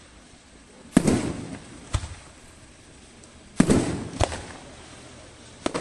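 Aerial firework shells bursting: two loud bangs about two and a half seconds apart, each with a long fading tail and a sharper, lighter report about a second after it, and another short report near the end.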